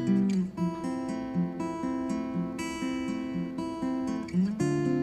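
Background music: plucked and strummed acoustic guitar, notes changing every half second or so.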